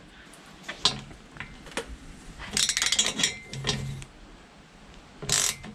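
Metal tools clinking, with a run of quick clicks around the middle, as a spanner and socket turn a homemade rivnut setting tool. The tool is pulling a zinc-plated mild steel rivnut up tight in a steel bracket strip.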